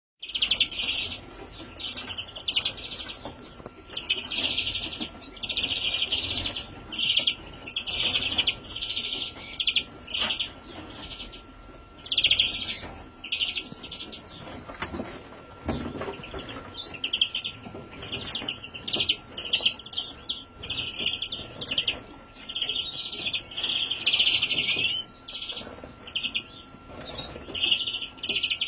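Young European greenfinches calling: rapid chirps in short, dense bursts that follow one another all the time with brief gaps.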